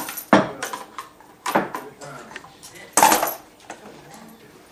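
Hard plastic balls and toy parts clattering on a toddler's plastic ball-ramp tower toy: a handful of sharp clacks and rattles, the loudest about three seconds in.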